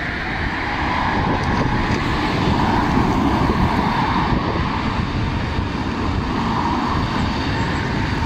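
Jet engines of an SAS Airbus A320-family airliner running as it moves along the runway, a steady rushing hum that grows slightly louder over the first couple of seconds. Wind rumbles on the microphone underneath.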